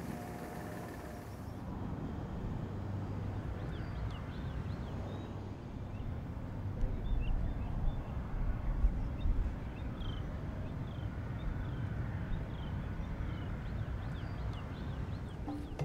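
Outdoor background: a steady low rumble with faint, scattered bird chirps, a little louder for a few seconds in the middle.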